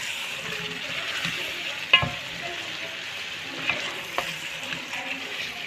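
Bone-in chicken pieces sizzling in hot oil with ginger-garlic paste and spice powders as they are stirred and fried together (the bhuna stage of a curry). A spoon knocks against the pan about two seconds in with a brief metallic ring, with a couple of lighter knocks later.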